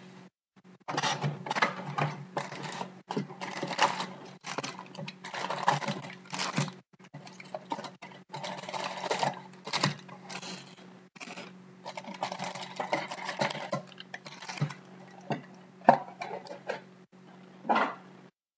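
Foil-wrapped trading card packs rustling and crinkling in irregular bursts as they are pulled from the box and stacked by hand, with a few sharp taps as packs are set down.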